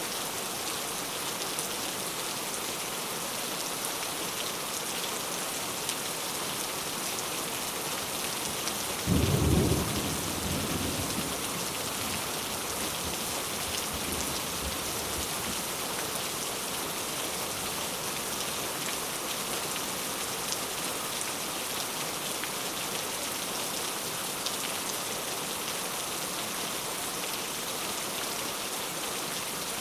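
Heavy rain falling steadily, with a single clap of thunder about nine seconds in that rumbles away over the next couple of seconds.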